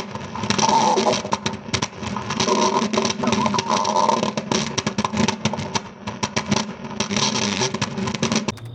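Stomach growling: a long, uneven rumble full of irregular crackles that runs on without a break.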